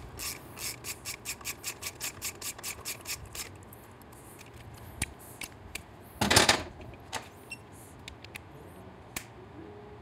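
Socket ratchet clicking quickly and evenly, about six clicks a second, as a 16 mm socket spins a motorcycle engine mounting bolt down; the clicking stops about three and a half seconds in. A short clunk of metal tools follows a little after the middle.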